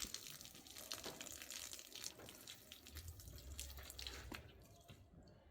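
Faint water splashing and trickling with small irregular drips, like washing at a tap, dying away near the end.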